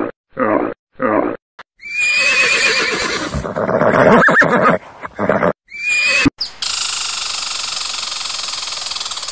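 A pig grunting in short, even calls about twice a second, then a horse neighing, a long whinny and a shorter one. A steady buzzing rasp follows near the end.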